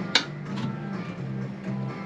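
Background music with guitar and a steady run of low bass notes, with one sharp click just after the start.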